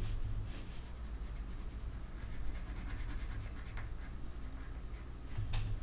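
Pencil scratching on paper in quick, repeated shading strokes, over a steady low hum.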